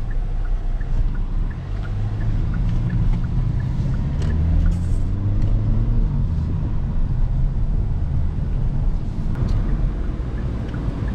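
Kia Forte GT being driven: steady engine and road rumble. The engine note rises and falls a few times as the car speeds up and changes gear.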